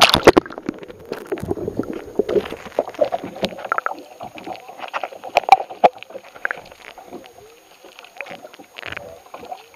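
Muffled water heard through a submerged camera: a loud splash as it goes under at the start, then uneven sloshing and bubbling with scattered small clicks and knocks.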